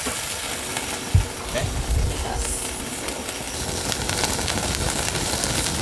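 Tomahawk steak sizzling on a wire grate over a charcoal chimney, fat dripping into the coals and flaring, a steady hiss with scattered crackles. A low thump comes about a second in.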